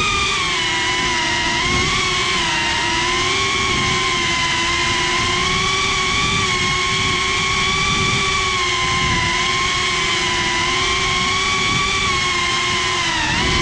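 FPV racing drone's motors and propellers whining steadily, recorded by the GoPro on board, the pitch wavering gently with throttle and dipping briefly near the end.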